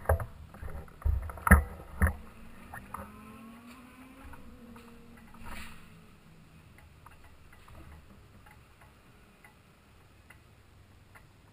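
A few sharp knocks and bumps in the first two seconds or so, and another about halfway, as the camera is handled. After that the room is quiet except for the faint ticking of a wall clock.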